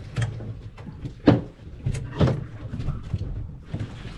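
A few sharp knocks and thumps, the loudest about a second in, from a large fish being handled and a cooler lid being worked on a boat deck, over a steady low rumble.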